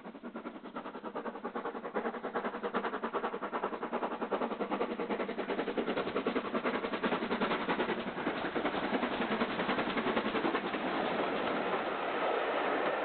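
Great Western 4500 Class 2-6-2T Prairie tank steam locomotive working a train, its exhaust beating in a rapid, even rhythm that grows louder over the first couple of seconds as it approaches.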